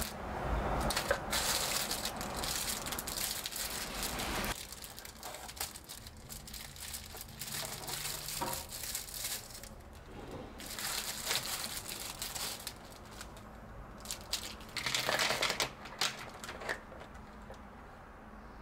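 Clear plastic packaging crinkling as it is handled, in bursts: longest and loudest over the first few seconds, then shorter crinkles later, with a few light clicks.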